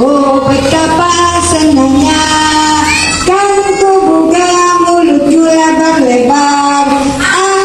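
A song: a high voice singing held, gliding notes over a musical accompaniment, with the low backing dropping out about three seconds in.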